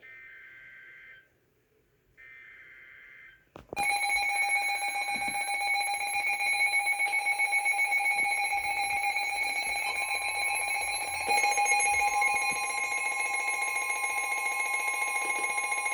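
Emergency Alert System tones: two bursts of SAME digital header data, about a second each with a second's gap between, then from about four seconds in a loud, steady attention tone. A second, slightly higher tone joins it near ten seconds in.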